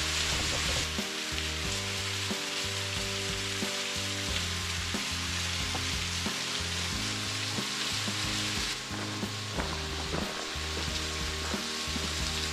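A thin waterfall splashing down onto rock, a steady rushing hiss whose level steps abruptly twice. Background music with held low notes plays underneath.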